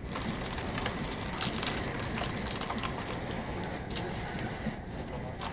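Steady rumble and hiss of an E657 series limited express electric train running at speed, heard from inside the passenger cabin.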